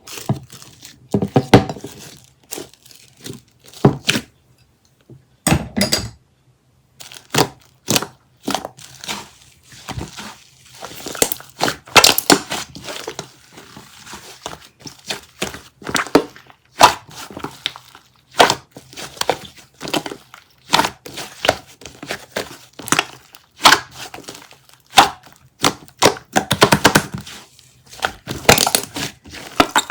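Crinkling and crackling as a soft squishy toy is squeezed and handled. The crackles come in irregular bunches with short gaps.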